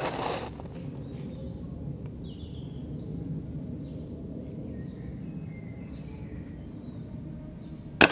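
Faint birdsong chirps over a steady outdoor background, then near the end one sharp, loud crack of a .22 spring-piston break-barrel air rifle firing.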